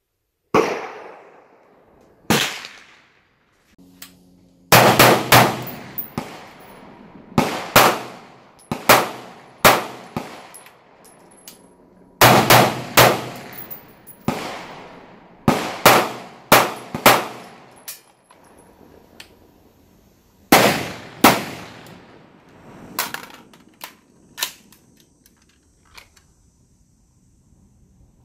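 Gunshots from a 5.56 AR pistol with a 10.5-inch barrel and a handgun, in a rifle-to-pistol transition drill: two rifle shots and then one pistol shot on each target. The shots come as singles and in quick strings of two to four, each with a short echoing tail.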